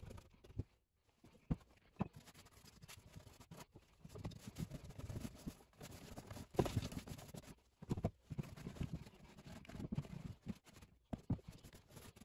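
A cloth rag rubbing and dabbing over a painted wooden chest, working brown acrylic paint on to weather it, with irregular scratchy rubbing. Short light knocks come as the wooden box is handled and turned, the loudest a little past the middle.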